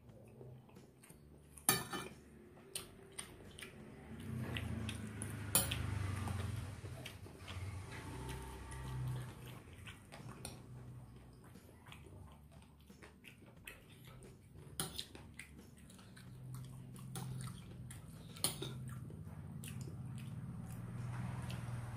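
Close-up eating sounds: chewing rice and soto betawi with wet mouth noises, broken by several sharp clinks of a metal spoon against a ceramic plate and a glass soup bowl.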